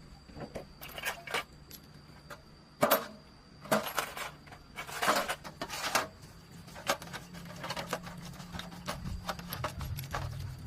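Metal clinking and knocking from hand tools and parts being handled, with one sharp knock about three seconds in and scraping between about four and six seconds.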